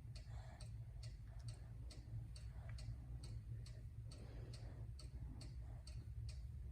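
Faint, steady mechanical ticking, about two to three ticks a second, over a low steady hum.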